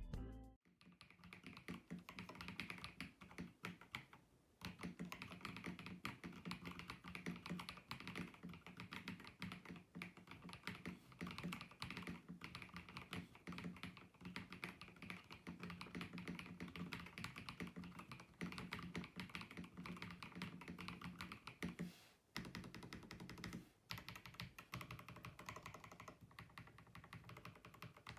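Typing on a mechanical keyboard fitted with PBT Cherry-profile keycaps: a fast, continuous clatter of keystrokes, with two short breaks near the end.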